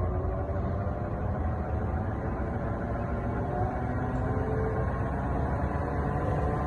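On-car wheel balancer spinning a Toyota Prado's wheel at speed on the vehicle: a steady low rumble from the spinning tyre and the balancer's drive.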